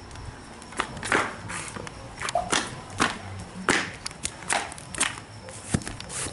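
Irregular scuffing footsteps, roughly two a second.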